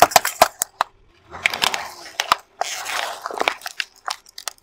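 Car tyre crushing small plastic toy figures against asphalt, with a quick run of sharp cracks and snaps, then stretches of crunching and crinkling as a foil snack packet is flattened.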